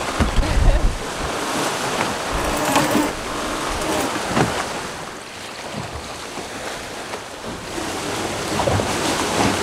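Wind and waves rushing past a sailing catamaran under way in a swell, with wind buffeting the microphone in the first second.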